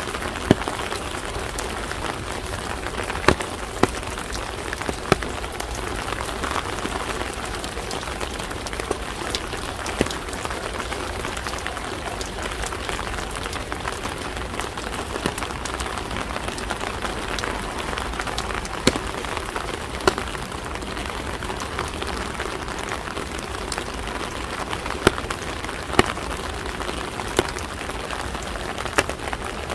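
Steady rain falling on hard surfaces, an even hiss broken by scattered sharp ticks of heavier drops every few seconds.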